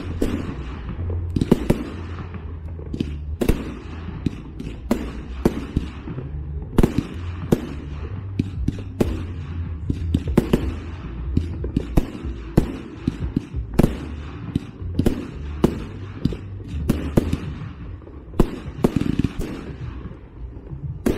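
Fireworks display: a fast, irregular series of sharp bangs from fireworks bursting, one or two a second, over a continuous low rumble.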